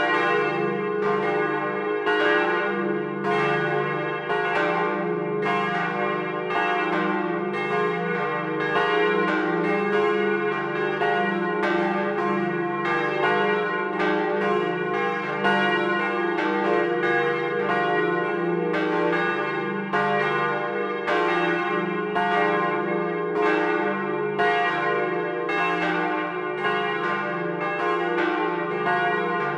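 Church bells swinging in a timber bell frame and ringing together, recorded close up in the tower: frequent overlapping strikes over a steady, sustained hum.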